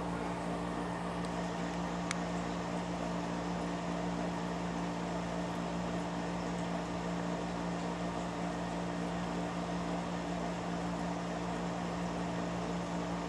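Steady mechanical hum with a couple of low held tones over a faint hiss, unchanging throughout, like a fan or air-handling unit running in the room.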